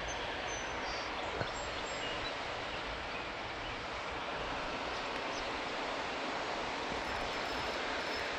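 Steady outdoor ambient noise, an even rushing hiss, with a few faint high chirps and one small click about a second and a half in.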